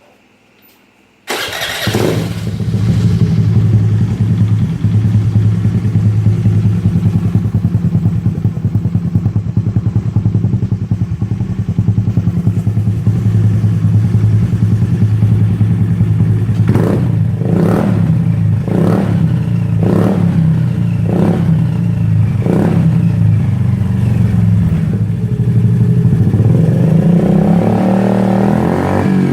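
Dio scooter engine with a LeoVince Cobra aftermarket silencer starting about a second in and then idling steadily. From around the middle it is given a series of short throttle blips, and near the end a longer rev that rises in pitch.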